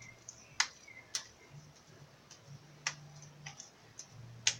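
Slime being squeezed and stretched by hand, giving about five sharp, irregularly spaced clicks and pops.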